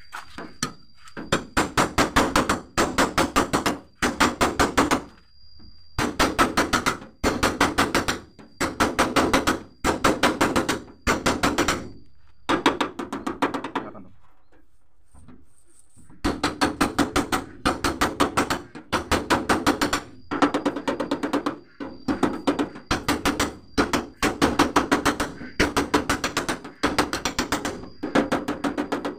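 Quick runs of light metal taps on the sheet-steel door panel of a Mitsubishi L300 van, a flat steel body spoon being tapped over the dent to work it out without harming the paint. The runs last about a second each with short pauses between them, and there is a longer pause about halfway through.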